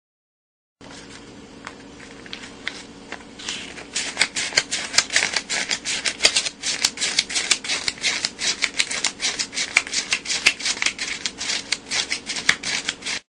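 US dollar bills flicked one at a time by the thumb while counting a stack of banknotes: faint rustling at first, then from about four seconds in a rapid run of crisp paper snaps, about four or five a second, that cuts off suddenly.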